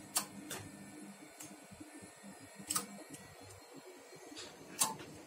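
Sharp, irregular clicks, about seven in five seconds, from switches and relays as the bands are stepped on a ham radio transceiver and its LDMOS linear amplifier. A faint steady hum runs under them.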